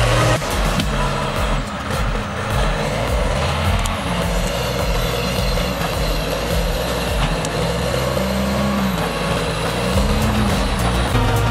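Diesel engine of a Timberjack forestry forwarder running under load, its pitch rising and falling as it works.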